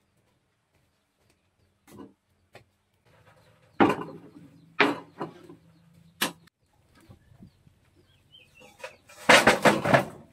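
Raw sweet potatoes tipped from a wicker basket into a stainless steel bowl, a quick clatter of knocks on the metal near the end. Before that there are a few separate knocks of things set down on a wooden table.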